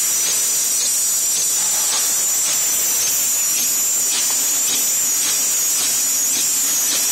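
NYS-800 double-twist candy wrapping machine running: a steady high hiss with faint clicks repeating about every half second.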